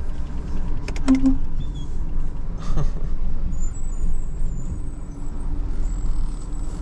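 A vehicle's engine running low and steady, heard from inside the cab as it moves slowly, with a few sharp clicks in the first second or so.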